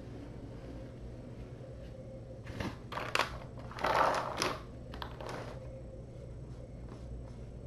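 A short cluster of clicks and rustles in the middle seconds: keys pressed on a computer keyboard, with a paper towel rustling as a hand brushes over it. A low steady hum runs underneath.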